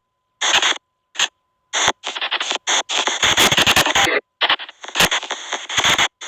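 Ghost-box white noise app playing through a phone: harsh bursts of static that switch on and off abruptly at irregular intervals, with short silent gaps and a faint steady tone showing in some of them.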